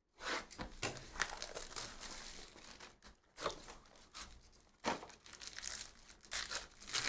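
A 2023-24 Bowman University Chrome basketball card box being torn open and its foil-wrapped packs rustling as they are pulled out, then a pack wrapper torn open near the end.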